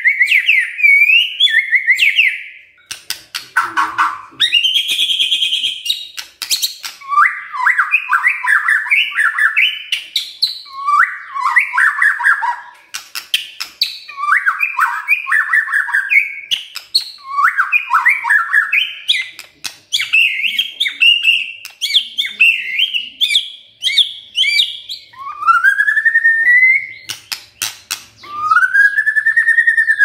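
White-rumped shama (murai batu) singing its rapid chattering 'kretekan' song. It repeats bursts of fast rattling notes about every two seconds, with a few sharp clicks between phrases, then two rising slurred whistles near the end.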